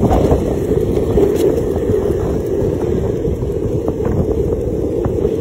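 Steady low rumble of wind buffeting the microphone while moving quickly along a road.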